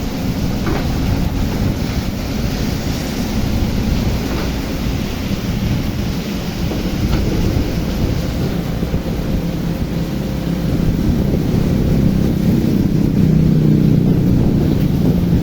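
Excavator's diesel engine running in heavy rain, with rain and wind noise on the microphone. The engine grows louder over the last few seconds.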